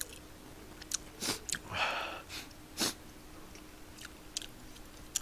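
Close-miked mouth sounds of someone eating spicy tteokbokki: wet chewing clicks and lip smacks, with a short breathy noise about two seconds in.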